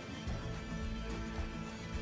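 Background music with held notes over a steady beat.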